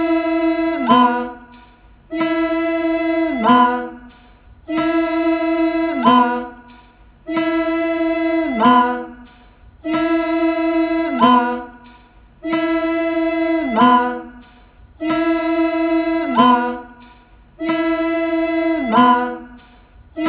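Music: a held wind-instrument note that slides down in pitch at its end, repeated about every two and a half seconds, eight times over.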